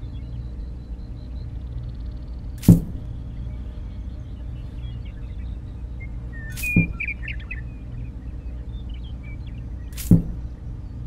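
Three sharp knocks, a few seconds apart, over a steady low hum, with faint bird chirps.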